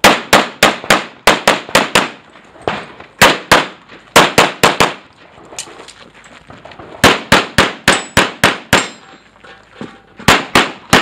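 Pistol fired in rapid strings during a practical-shooting stage: about thirty loud sharp shots, many fired in quick pairs, with short pauses between the strings.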